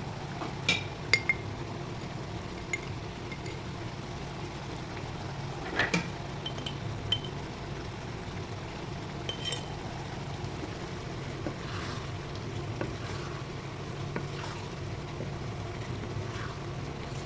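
Metal spoon clinking against a cooking pot while stirring: several sharp, briefly ringing clinks in the first half, fewer later, over a steady low hum.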